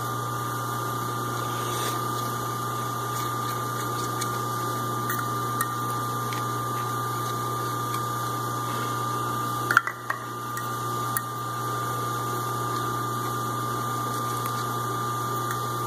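Steady low hum with a faint constant high tone under it, with a few small clicks and a brief knock about ten seconds in.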